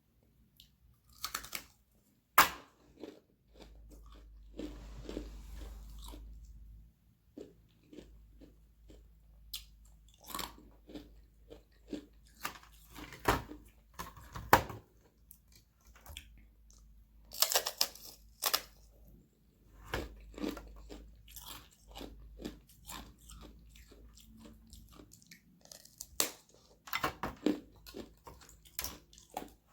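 Sheets of frozen carbonated water being bitten and chewed close to the microphone: sharp snaps and irregular crunching of ice.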